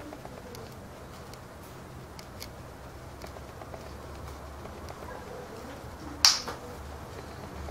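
Eclectus parrot pair during beak-to-beak courtship feeding: one loud, sharp click-like snap about six seconds in, with a few faint ticks and a low steady hum.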